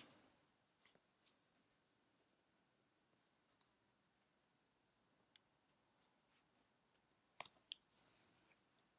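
Near silence with a few faint, sharp clicks: single ones about a second, three and a half and five and a half seconds in, then a quick run of several clicks around seven and a half to eight seconds in.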